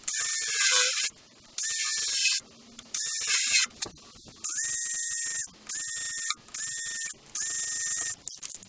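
DeWalt cordless drill boring into a wooden block in seven short bursts, each under a second, its motor whine rising briefly as it comes up to speed each time the trigger is pulled.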